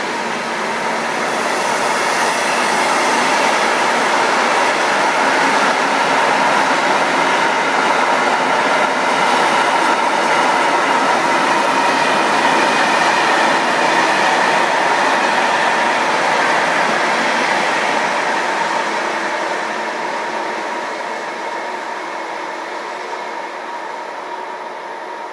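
Freight train wagons rolling past on the rails, a steady wheel-on-rail rumble and hiss with a faint ringing tone. It grows louder in the first few seconds, holds, and then fades away over the last several seconds as the train recedes.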